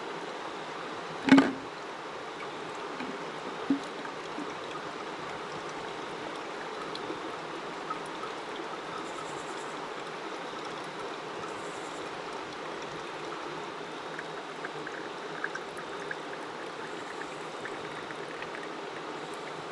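Running water, a steady even rush like a mountain stream, with a sharp knock about a second in and a lighter one a couple of seconds later.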